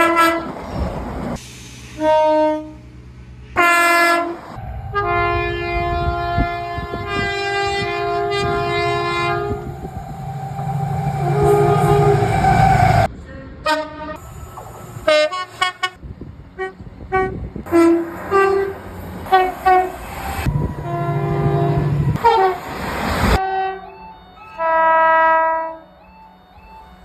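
Train horns sounding in a series of separate clips: short toots alternate with longer held horn chords of several tones, the longest lasting about five seconds. The running rumble of passing trains sits under some of them.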